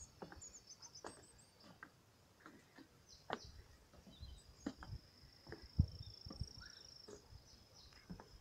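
Footsteps on wooden boardwalk planks, an irregular knock every half second to a second. Behind them a thin, steady, high insect trill runs through the second half, with a few short high bird chirps near the start.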